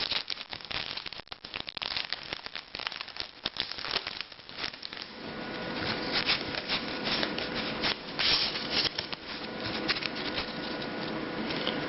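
Foil wrapper of a Pokémon TCG booster pack crinkling and tearing as it is opened by hand, a dense run of irregular crackles.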